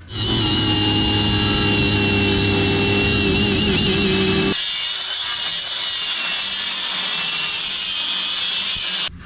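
Power tool cutting through steel cross members, in two cuts: first a steady high whine over a deep rumble, then, about four and a half seconds in, a sudden change to a thinner hissing, grinding sound.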